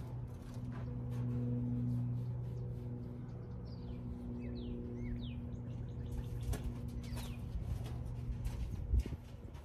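A steady low hum, like a motor or fan, with a few quick, high, falling bird chirps about four to five seconds in, and a single thump near the end.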